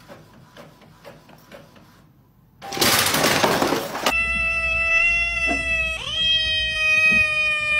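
Faint ticking from an Epson inkjet printer, then a loud rush of mechanical noise lasting about a second and a half as it feeds paper. After that a kitten meows with a long, high, steady cry that breaks once partway through.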